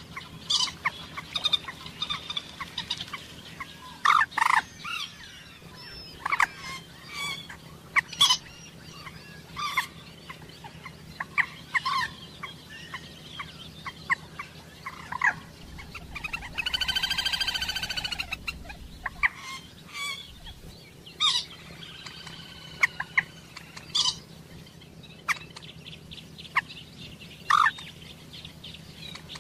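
Common moorhen calling: a string of short, sharp calls at irregular intervals, with one longer drawn-out call about halfway through.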